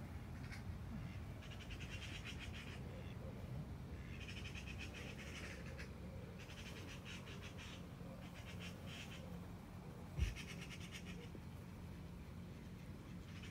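An animal calling in buzzy, rapidly pulsed bursts about a second long, repeated every couple of seconds, over a steady low rumble. A single thump comes about ten seconds in.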